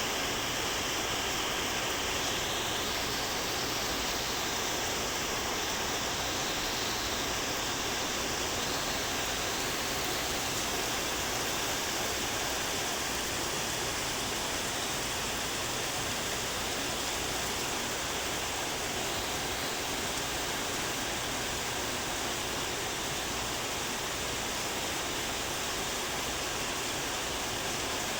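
Rain falling steadily, an even rushing hiss.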